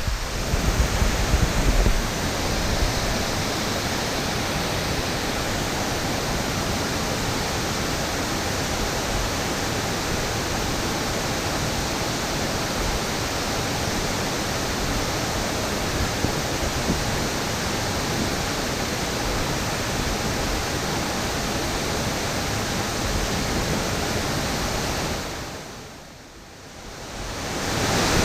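A large waterfall's steady rush of falling water, a continuous even noise. It has some low buffeting on the microphone in the first couple of seconds, and it dips and swells back about 26 seconds in.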